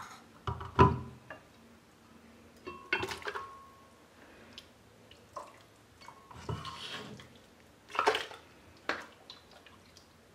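A ladle scooping cooked vegetable soup out of a ceramic pot and tipping it into a glass blender jar: a series of clinks, scrapes and wet splashes every second or two, the loudest a knock about a second in.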